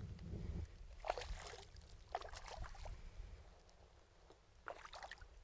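Faint scattered splashes and knocks from a feisty black crappie being landed at a kayak, with a brief low rumble at the start.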